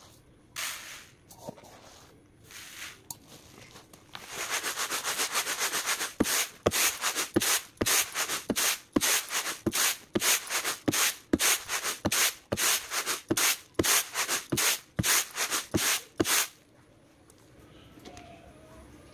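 Uncooked rice being winnowed in a flat woven-bamboo winnowing tray: a rhythmic swish and rattle of grains, about two to three tosses a second. It starts after a few seconds of scattered rustling and stops suddenly near the end. The winnowing is clearing bought rice of unhusked paddy grains and husk dust.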